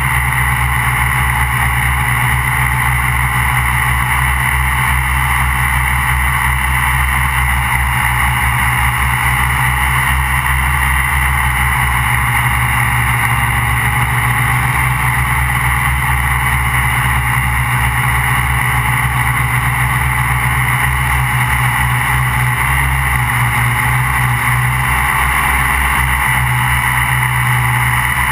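MikroKopter Quad XL quadcopter's electric motors and propellers running steadily in a hover, heard from the camera on the airframe as a loud, constant buzz with a high whine.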